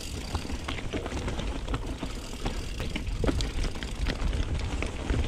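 Mountain bike rolling over a rough trail: steady tyre noise with many irregular clicks and rattles from the chain and frame, over a low rumble on the chest-mounted microphone.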